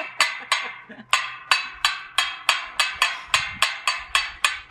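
A hammer banging repeatedly on a metal conduit pole of the coop frame: a steady run of sharp, ringing metallic clanks, about three a second.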